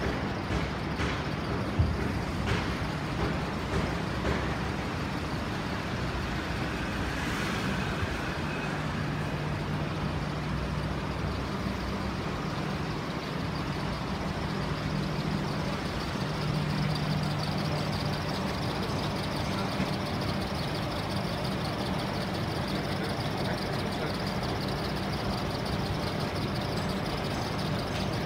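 Old belt-driven compressor or condensing unit running steadily, its motor and cooling fan giving a continuous low hum over a noisy whir. A few light knocks come in the first few seconds.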